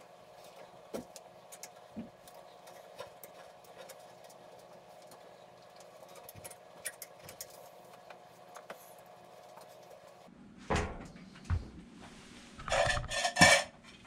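Light metallic clicks and scrapes over a faint steady hum, from hand tools and sheet-metal furnace parts being handled. A few seconds before the end come louder knocks and a short burst of metallic clattering.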